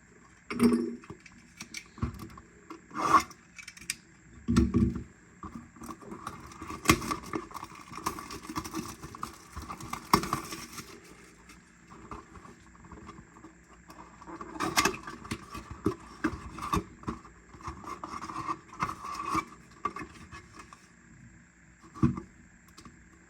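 A cardboard trading-card blaster box being opened and its contents handled by hand: irregular rubbing, scraping and rustling, with scattered knocks and clicks.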